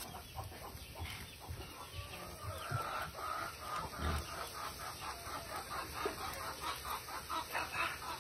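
Chickens clucking, a fast even run of short calls from about three seconds in, over the scrape and knock of a spatula stirring frying rice in a metal pot.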